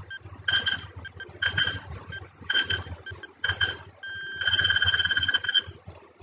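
Countdown timer sound effect: four short beeps about a second apart, then a longer ringing tone lasting about a second as the count reaches zero.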